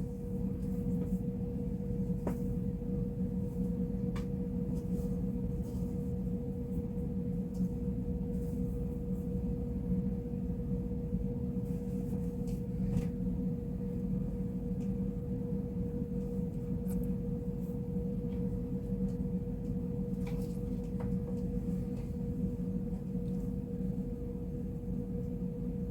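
A steady low hum with a constant mid-pitched tone, like a running motor or appliance, with a few faint clicks scattered through it.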